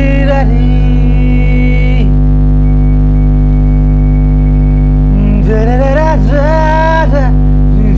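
Man singing an Assamese song over a backing track. The track has a steady low drone and some held notes near the start. His wavering sung phrase comes from about five and a half to seven seconds in.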